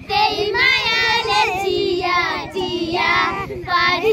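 Young girls singing unaccompanied, with held, wavering notes.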